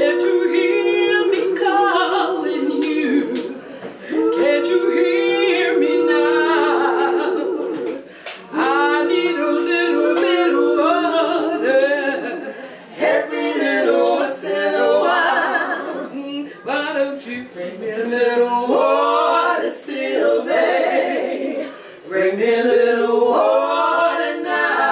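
Three women singing a cappella in close harmony, in phrases a few seconds long with short breaks between. The first two phrases are long held chords, and later phrases move more.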